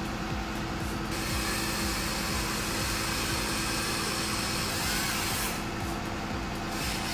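A motor running steadily with a constant hum, joined by a louder hiss from about a second in until about five and a half seconds in.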